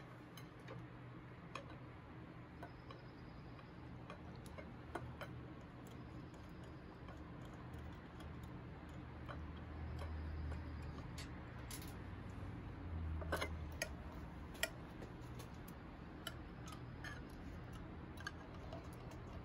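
Scattered, irregular light clicks of small metal carburetor parts being handled: throttle return springs and the throttle lever being fitted onto an S&S Super E carburetor, over a low steady hum.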